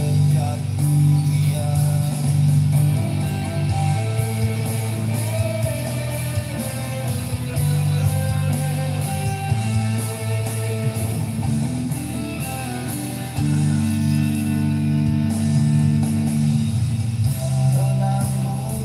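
Guitar music playing through a Blazer guitar amplifier, with long held low notes that change every second or two beneath the melody.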